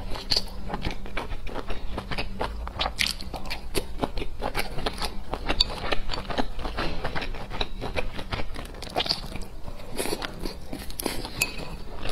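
Close-miked chewing of dumplings dipped in sauce: a dense, irregular run of small mouth clicks and smacks.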